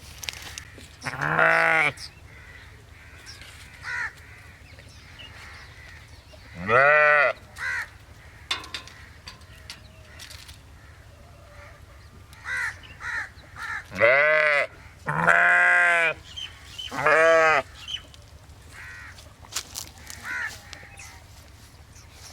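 Sheep bleating: a string of baas with a wavering pitch, some long and some short, coming close together near the middle.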